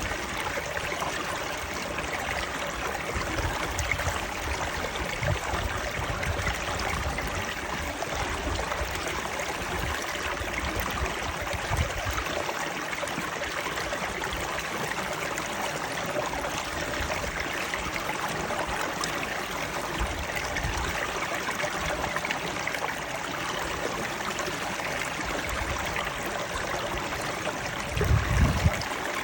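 Running water, a steady rush, with a brief low rumble near the end.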